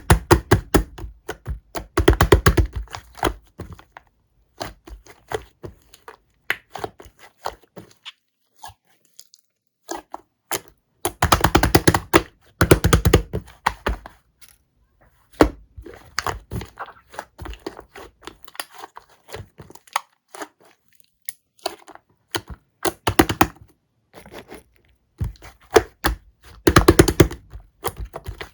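Slime being kneaded, squeezed and poked by hand, giving many small sticky clicks and pops, in several thick bursts of rapid popping with sparser clicks between.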